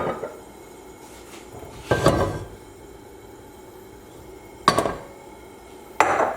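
Cookware and utensils clattering on a kitchen counter and stovetop, four separate knocks and clanks, the second one a little longer.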